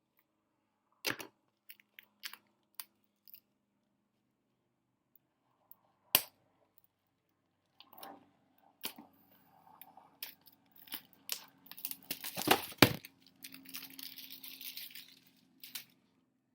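A trading card box being handled and opened: scattered sharp clicks and taps, then from about eight seconds in, packaging tearing and crinkling, busiest and loudest around twelve to thirteen seconds before tapering off.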